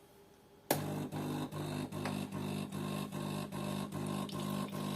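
DeLonghi coffee machine's pump starts suddenly about a second in and runs with a steady, regularly pulsing hum: the machine's rinse cycle, flushing leftover residue out of the pipe after heating up.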